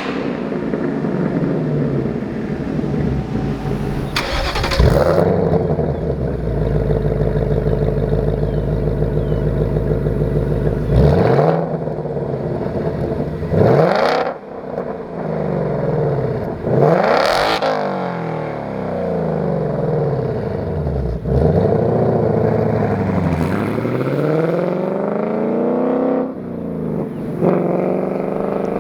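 2024 Ford Mustang GT's 5.0 L Coyote V8 running through a Corsa 3-inch double H-pipe, which replaces the stock resonator. It revs several times, its pitch climbing sharply and falling back, with stretches of steadier running between the revs.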